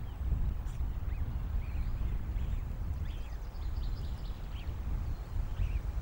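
Low, uneven rumble of wind buffeting an outdoor nest-cam microphone, with faint, short, high bird chirps scattered through it.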